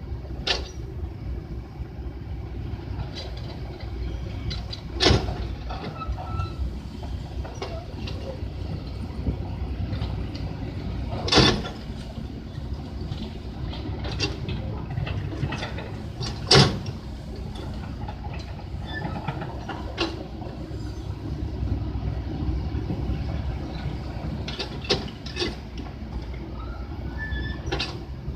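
Heavy truck engine running with a steady low rumble, broken by sharp knocks, the three loudest about five, eleven and seventeen seconds in.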